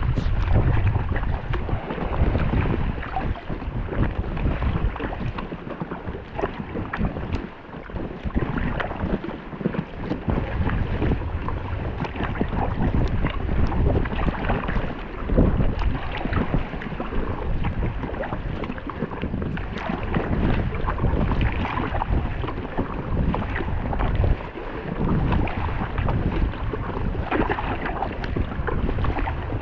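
Strong wind rumbling on the microphone over water splashing and slapping around an inflatable kayak being paddled into the wind, with irregular splashes throughout.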